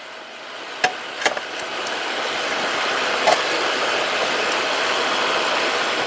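A few small clicks and taps of wire and pliers being handled as hookup wires are crimped onto BNC connector solder lugs, over a steady hiss that builds up in the first two seconds and then holds.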